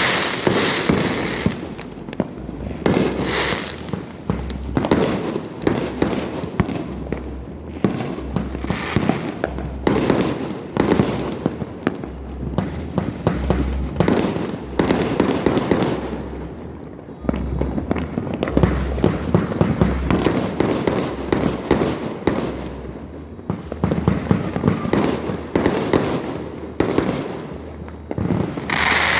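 Fireworks going off in a rapid, continuous barrage of overlapping sharp bangs and crackles, with a short lull a little past halfway.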